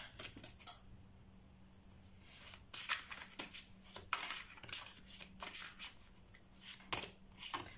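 Tarot deck being shuffled and handled: irregular soft card flicks and rustles, starting about two and a half seconds in after a quiet stretch.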